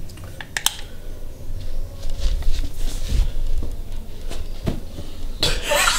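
Handling noise from a handheld camera being carried: a low rumble with a couple of sharp clicks about half a second in and a burst of rustling near the end.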